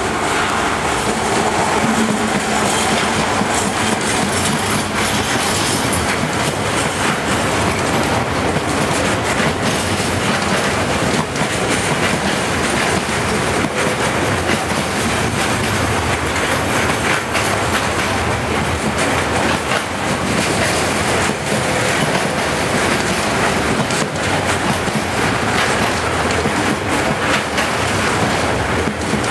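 A Class 70 diesel locomotive passing close by, its engine note heard in the first couple of seconds, then a long train of container wagons rolling past with a steady roar and repeated knocks of the wheels on the track.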